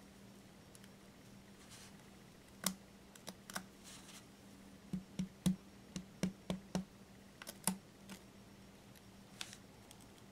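Light, irregular clicks and taps of porcelain being handled, about a dozen, bunched toward the middle: a broken piece of a pierced porcelain basket being fitted into its rim, porcelain clicking against porcelain under the fingers.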